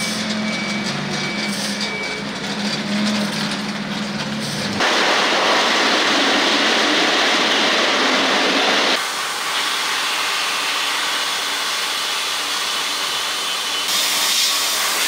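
Factory machinery noise in three abrupt sections: a steady hum with a few held tones, then about four seconds of loud hissing noise, then a steadier machine hum with a brighter hiss near the end.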